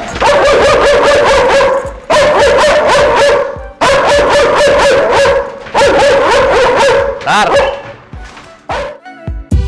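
A black German Shepherd guard dog barking fiercely and very rapidly in four long volleys with brief pauses between them, fading away near the end.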